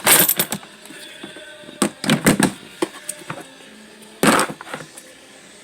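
Hard plastic clacks and knocks of tool batteries and the organiser trays of a Milwaukee Packout tool box being handled and set in place. They come in three short clusters about two seconds apart, the loudest near the end.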